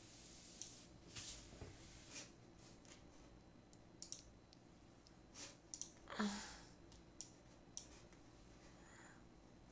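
Quiet, scattered clicks of a computer mouse at irregular intervals. A short vocal sound, falling in pitch, comes about six seconds in and is the loudest thing.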